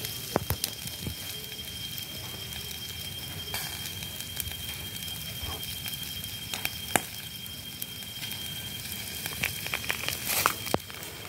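Charcoal embers crackling under catfish grilling on bamboo skewers: scattered sharp pops over a steady hiss, with a quick run of pops near the end.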